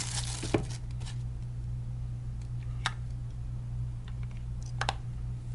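Small plastic clicks and light handling as a battery is fitted into a Samsung A837 phone: a sharp click about half a second in, another near three seconds and a quick double click near five seconds, over a steady low hum.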